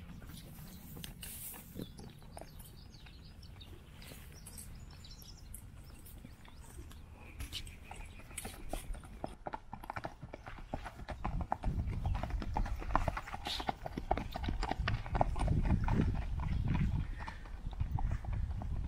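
Hooves of a ridden horse striking dry dirt in a quick, even clip-clop, soft at first and loudest a little past the middle, then fading slightly near the end.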